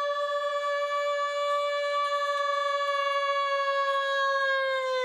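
A single voice singing one long, high, steady note in traditional folk style. The note is entered with a yodel-like break and slides downward at the very end.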